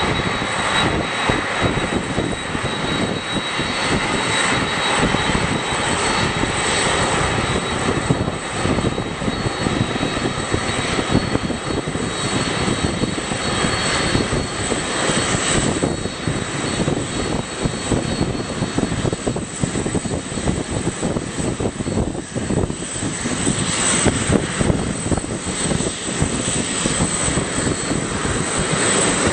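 Jet engines of a Boeing 747-400D running at taxi power: a steady rush with a thin, high, steady whine on top.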